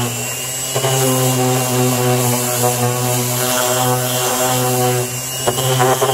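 Bosch random orbital sander running steadily, its sanding disc working along the top edges of a small pine box to smooth them. The motor gives a steady hum that dips briefly now and then as the sander is moved and pressed on the wood.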